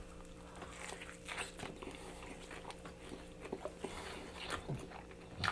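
Close-up eating sounds: a person biting into and chewing a fried chicken sandwich, with soft wet crackles and small clicks of the mouth.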